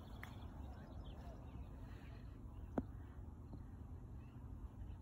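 A single sharp click of a golf club striking the ball on a shot toward the green, about three seconds in, over a steady low rumble.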